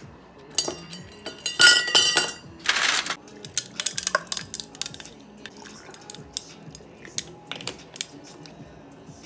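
Ice cubes clattering and clinking into a stainless-steel-lined tumbler, loudest in the first three seconds with a brief ringing. Then lighter, scattered ticks and clinks of the ice while coffee and water are poured over it.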